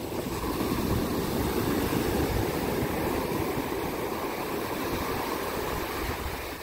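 Ocean surf breaking and washing up the beach, a steady rush of water noise, with wind rumbling on the microphone.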